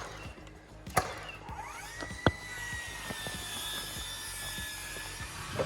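Wood-framing work: two sharp knocks about a second apart, and a power tool's whine that rises to a steady pitch, holds for about three and a half seconds, sinks slightly and stops.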